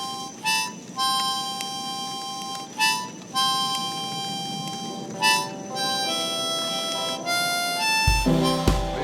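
Harmonica playing the intro of a country song: long held notes with short breaks, then a falling run of shorter notes. About a second before the end, other instruments come in with a low, steady beat.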